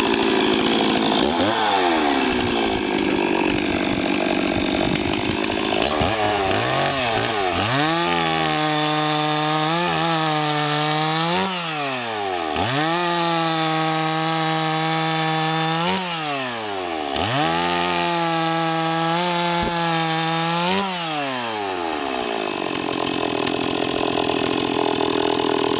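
Stock Stihl MS 260 two-stroke chainsaw running at full throttle and cutting slices off a hardwood log. Through the middle its engine pitch drops and climbs back several times.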